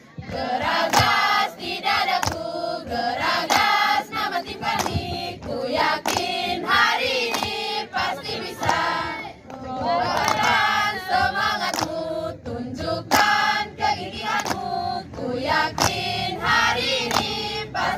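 A group of young voices, mostly girls, singing together as a choir in phrases a few seconds long with short breaks between them.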